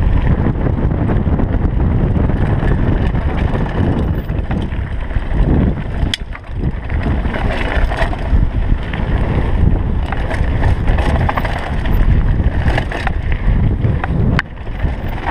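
Mountain bike descending a gravel trail at speed: a steady rush of wind on the microphone mixed with tyre noise on loose gravel and bike rattle, with a sharp knock about six seconds in and another near the end.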